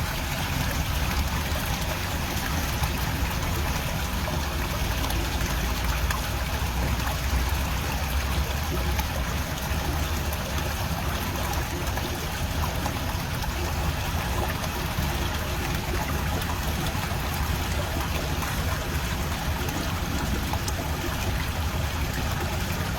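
Water rushing steadily, with a low rumble underneath.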